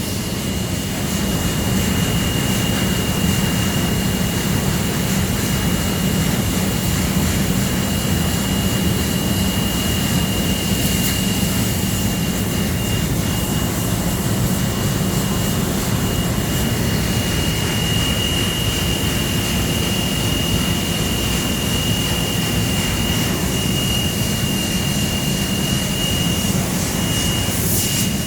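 Industrial textile-dust vacuum cleaner running steadily: a rush of blower noise over a low hum, with a thin high whistle on top.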